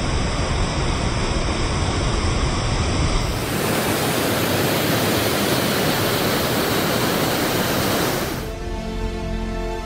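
Steady roar of whitewater: the Merced River rushing through a granite chute and pouring over the lip of Nevada Fall. The sound shifts about three seconds in and again near the end, when background music comes in over it.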